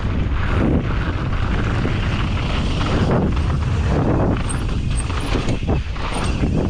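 Mountain bike descending a trail, heard from a rider-mounted camera: wind buffeting the microphone over a steady rumble of tyres on dirt and rock, with scattered knocks and rattles from the bike.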